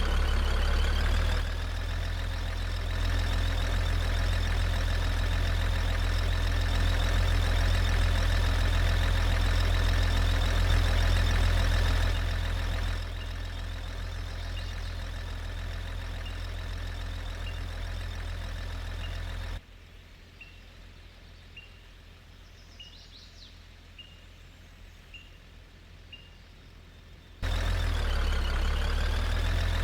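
A vehicle engine running steadily with a deep low rumble, its level jumping up and down abruptly several times. Faint regular ticks, about one a second, come through during a quieter stretch.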